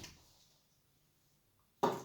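Sandy slime being handled: mostly quiet, with a brief soft noise at the start and one short, sharp squish near the end, the loudest sound.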